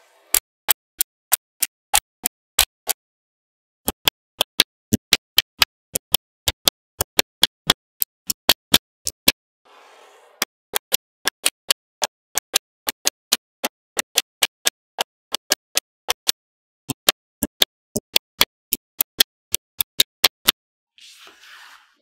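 Small magnetic balls snapping onto one another one at a time, a sharp click three or four times a second, in runs broken by short pauses.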